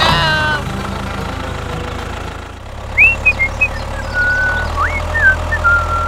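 Tractor engine idling steadily. Starting about halfway through, a few short high whistled chirps and glides play over it.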